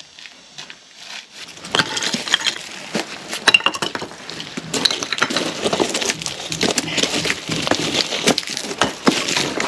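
Broken concrete and stone rubble clinking and clattering as it is shifted by hand: a dense, irregular run of knocks and scrapes that starts about a second and a half in.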